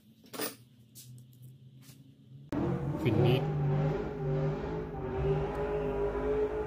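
Ford Mustang SVT Cobra's V8 engine being revved hard. It cuts in suddenly about two and a half seconds in and holds a loud, steady note, with a short dip in pitch just after it starts.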